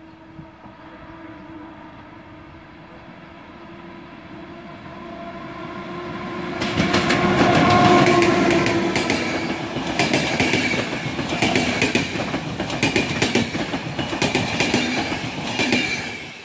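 An EP09 electric locomotive hauling a passenger train approaches with a growing rumble and a steady hum, then passes close by about seven seconds in, the loudest moment. The coaches follow with a rapid clickety-clack of wheels over the rail joints.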